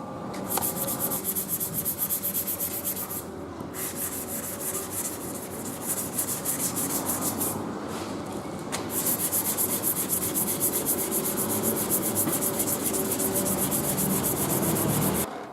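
Sanding on a car bumper, a rasping rub in rapid, even strokes, stopping briefly twice.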